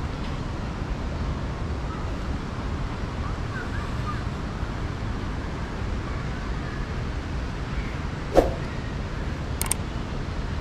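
Steady low rumble of city traffic, with one short sharp sound about eight seconds in and a couple of faint clicks near the end.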